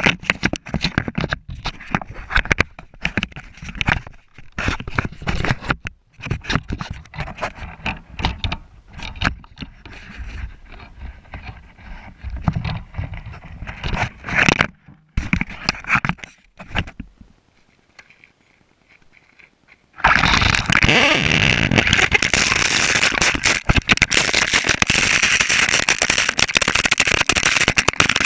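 Traxxas Slash RC car being driven over rough ground, with irregular scraping and crackling. It goes quiet briefly, then about twenty seconds in a loud, steady rush of noise begins.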